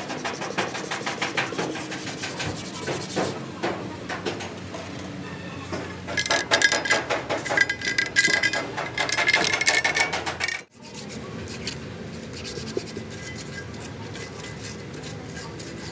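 A putty knife and a spreader scraping filler paste across a steel tractor wheel plate in quick repeated strokes. The strokes are loudest about six to ten seconds in, with a squeaking tone. Near eleven seconds the sound cuts off abruptly, leaving only a quieter steady noise.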